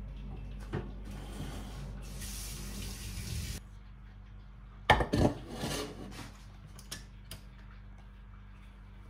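Steady rain falling, cutting off suddenly about three and a half seconds in. About five seconds in comes a loud clatter of a pan being set down on a stainless-steel electric hob, followed by a few light knocks.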